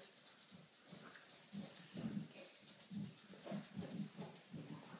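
Small toy rattle shaken rapidly and evenly, stopping about a second before the end, over a baby's soft low grunts.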